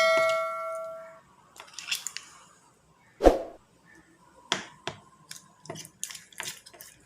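Homemade slime being stirred in a container: scattered light taps and clicks, with one heavier thump about three seconds in. A ringing tone fades out during the first second.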